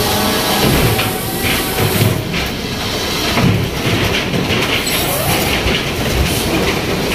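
Fishing vessel deck machinery running loud: a steady rumbling din with irregular metallic clatter and squeals.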